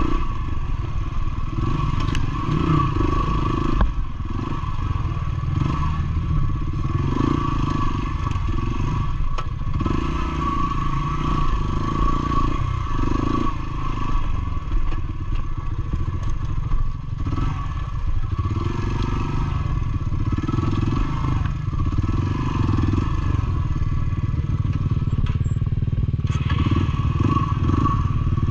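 Yamaha motorcycle engine running at low speed with an uneven note, along with clattering and scraping from the bike over rough, rocky dirt.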